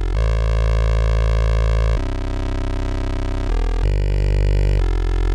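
Synthesizer made of two identically set sawtooth oscillators (ams-lv2 VCOs) mixed together, playing a run of held low notes that change pitch every half second to two seconds with no gaps. With both oscillators on the same waveform and frequency, it is a plain, static buzz: not a very interesting sound.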